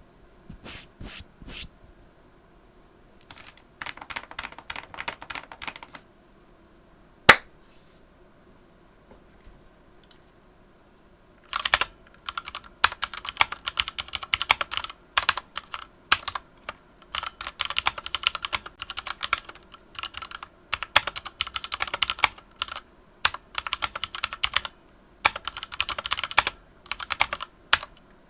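Typing on a Ducky One 2 Mini mechanical keyboard with Cherry MX Red linear switches. A few scattered keystrokes and a short burst of typing come first, then one sharp, loud click about seven seconds in. After a pause of a few seconds, steady fast typing starts about twelve seconds in.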